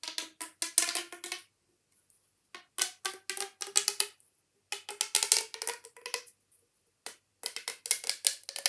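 Corrugated plastic pop tubes being stretched out and pushed back in, each stroke giving a quick run of clicking pops. There are four runs, each a second or so long with short pauses between, and the pops are louder when the tube is pulled out than when it is pushed in.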